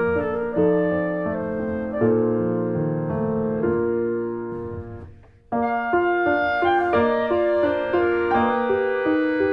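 Background piano music that fades out about five seconds in and starts again abruptly.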